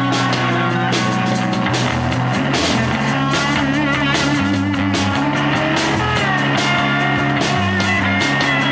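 Rock music with electric guitar and drum kit playing, some notes bending and wavering in pitch.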